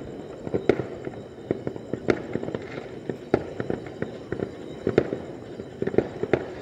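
Fireworks going off at a distance: an irregular stream of bangs and pops, a few much louder than the rest, over a continuous background crackle.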